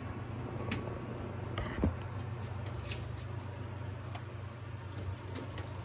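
Light handling noises, a few faint clicks and rustles of hands working among the wiring and plastic connectors inside a vending machine, the most distinct click just under two seconds in, over a steady low hum.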